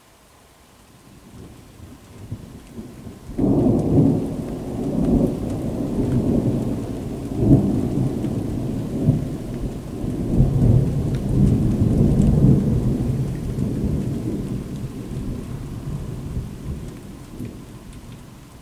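A long roll of thunder, building from a low rumble and breaking loudly about three seconds in. The rumbling swells several times, then slowly dies away toward the end. Rain patters faintly underneath throughout.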